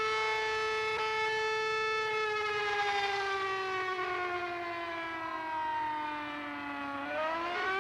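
Sentry rotating outdoor warning siren sounding: a steady, pitched wail that holds, slides slowly down in pitch over about five seconds, then climbs quickly back up near the end.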